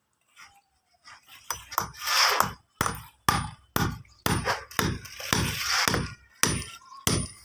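Hand tools at work on a construction site: about ten sharp knocks roughly half a second apart, with rough scraping between some of them.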